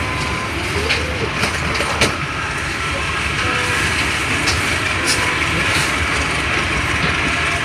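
Passenger train running past on the track: a steady rumble with occasional sharp clicks from the wheels.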